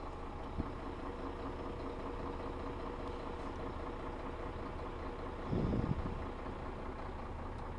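Scania 124L 400's 12-litre straight-six diesel idling steadily just after starting, heard from inside the cab. It runs smoothly. A brief louder low noise comes about five and a half seconds in.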